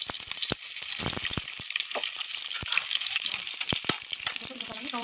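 Chopped onion sizzling steadily in hot oil in a pan as it is sautéed. Scattered clicks and knocks of stirring come through the sizzle.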